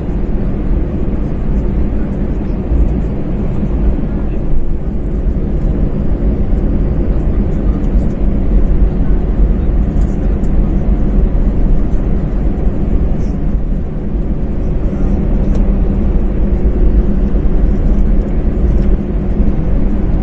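Cabin noise of an Airbus A321 taxiing: the CFM56 turbofans at low taxi power give a steady low rumble with a couple of steady hum tones. The level rises slightly for the second half.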